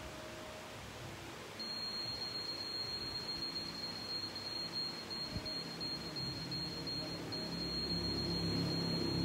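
Steady high-pitched whine from dental equipment, starting about one and a half seconds in and holding with a brief break near seven seconds, over a low hum that swells near the end.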